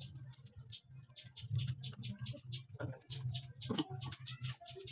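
Close-miked eating sounds of people chewing fried chicken and rice: quick, wet little clicks and smacks of mouths and fingers. A short voice-like hum comes just under four seconds in.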